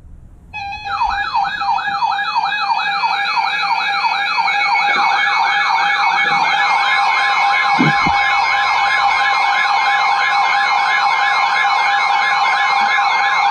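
Several electronic siren tones layered together: a fast yelp sweeping up and down about three times a second over steady tones, with a slower wavering tone above. It starts about half a second in, and more tones join over the next few seconds.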